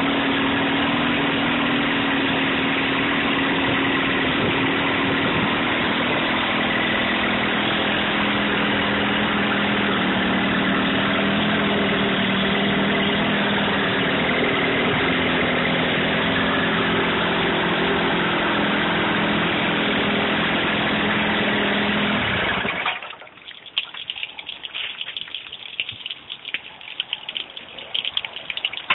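Evinrude 35 hp two-stroke outboard motor with its hood off, running steadily, then shut off suddenly after a little over twenty seconds. Irregular drips and splashes of water follow.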